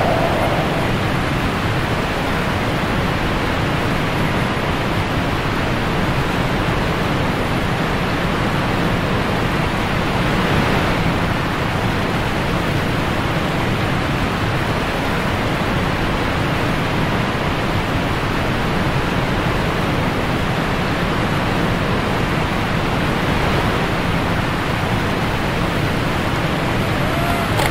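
Whitewater rapids rushing around an inflatable raft: a loud, steady rush of water noise with no breaks.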